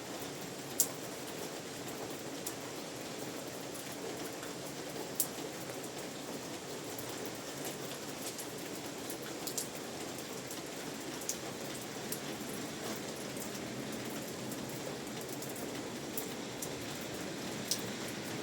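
Steady rain falling, with a few sharper drops landing now and then.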